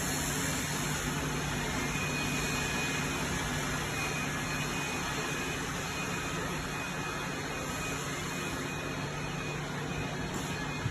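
Steady machinery hum and hiss of a factory workshop, with a low droning tone and a faint high whine running evenly throughout.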